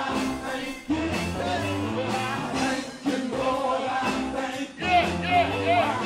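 A man sings into a handheld microphone over a live church band, amplified through PA speakers. Near the end he holds notes that waver in pitch.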